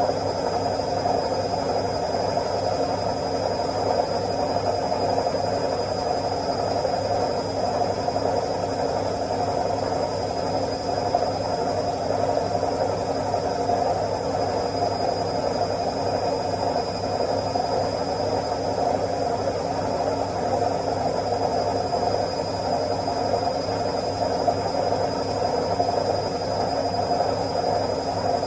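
Washing machine in its spin cycle: a steady whirring hum with vibration that holds at an even speed.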